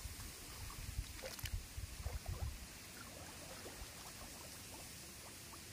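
Faint water sounds, small sloshes and drips, with a cluster of soft low bumps in the first half and a steady hiss underneath.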